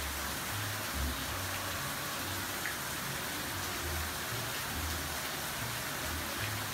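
Steady rain falling on tropical trees and palm leaves: an even hiss of drops on foliage.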